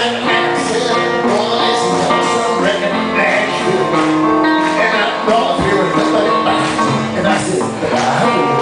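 Live solo guitar with a man singing along: a country-flavoured song played on a hollow-body guitar.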